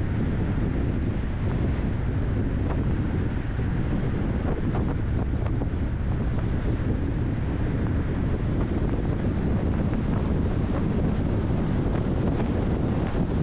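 Steady low rumble of wind on the microphone and road noise from a car being driven.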